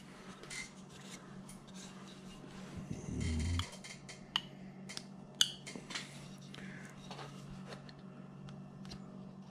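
A carving knife cutting and scraping a hand-held wooden figure: scattered small clicks and short scrapes. A brief low rumble of handling comes about three seconds in.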